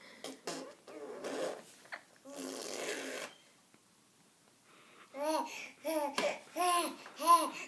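A six-month-old baby blowing raspberries, breathy sputtering bursts, then after a short pause a run of short babbling calls, each rising and falling in pitch, about three a second.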